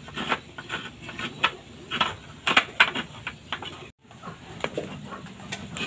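Hot oil sizzling and crackling around doughnut-shaped pitha deep-frying in a pan, with irregular sharp pops. The sound cuts out briefly about two-thirds of the way through.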